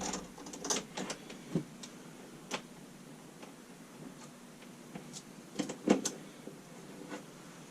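Loose saw-chain links clicking and clinking against the guide bar as a new chain is worked onto the bar and around its nose sprocket. Scattered light clicks, with a busier, louder group about six seconds in.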